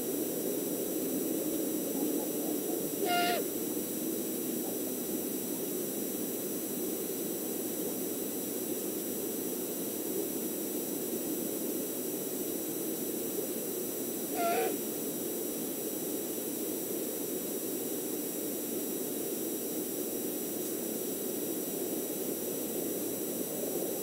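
Great horned owl giving two brief calls about eleven seconds apart, over a steady background hiss.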